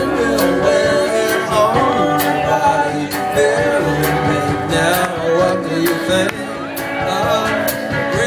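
Live band playing a slow song: electric guitar and drums, with evenly spaced cymbal hits about twice a second.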